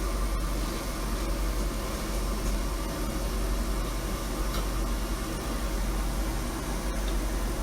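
Ventilation system's fan running: a steady airy rushing with a deep hum underneath.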